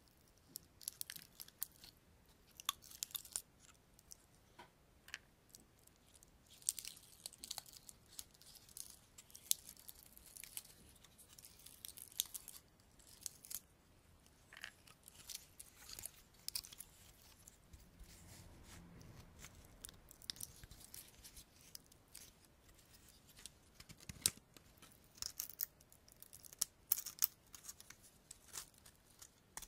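Dry pinecones handled and scratched close to the microphone: irregular sharp clicks and crackles of the scales, with a soft low rustle of handling about two thirds of the way through.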